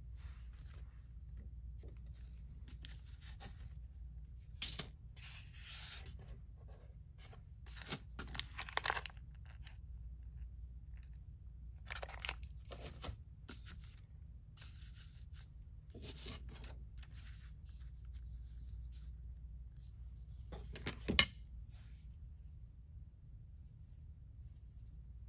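Clear plastic packaging sleeves and a stencil crinkling and rustling in scattered bursts as they are handled, with one sharp knock about 21 seconds in. A steady low hum runs underneath.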